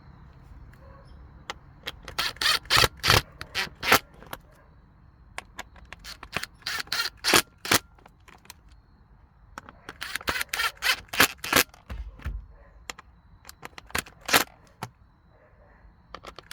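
Bursts of rapid sharp clicks from the screws of the car's plastic console trim being tightened. There are four bursts of a second or two each, with quieter handling noise between them.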